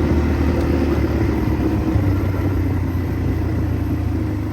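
Steady low rumble of a running motor vehicle, with a constant hum.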